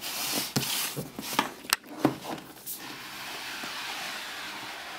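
Cardboard box packaging being handled and opened: a few taps and knocks with rustling, then a steady sliding rasp from about halfway, as a close-fitting lid or sleeve slides off.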